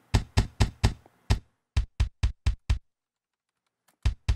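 Isolated kick drum hits playing back from a recorded drum track, in quick runs of about four a second. There is silence between hits and a pause of about a second after the middle.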